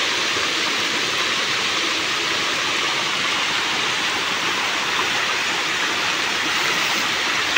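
Steady rushing hiss of running water, even in level, with no other sound standing out.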